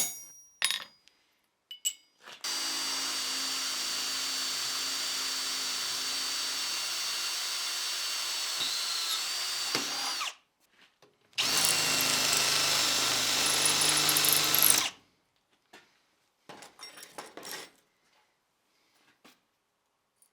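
Electric drill boring a hole in a forged steel hook: a steady run of about eight seconds, a short pause, then a second, louder run of about three and a half seconds. A few faint clicks follow.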